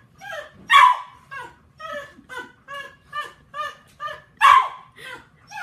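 A dog barking and yipping over and over in quick short calls, about two or three a second, with two louder barks, one about a second in and one near the end.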